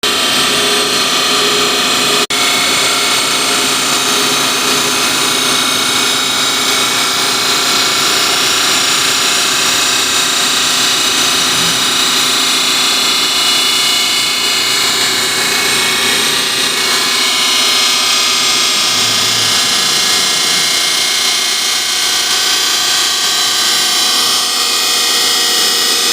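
CNC router spindle running steadily as it cuts, a continuous high-pitched machine whine over a noisy hiss, with a momentary break about two seconds in.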